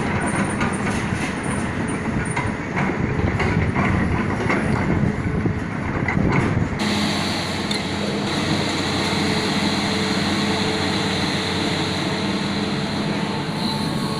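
Hitachi excavator at work: its engine is running under a clatter of knocks and clanks. About seven seconds in the sound changes abruptly to a steadier engine note with a high whine.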